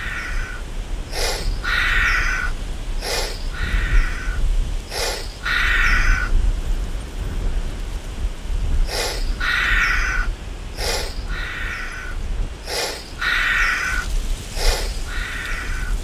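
Repeated short rasping animal calls, each led by a sharp click, about every two seconds with a pause of a few seconds around the middle, over a steady low rumble.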